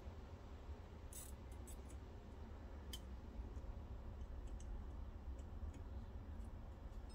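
Faint small clicks and ticks of a metal pick and soldering-iron tip working at the solder terminals of a VCR video head drum while the head wires are desoldered. A cluster comes about a second in and a sharper click near three seconds, over a low steady hum.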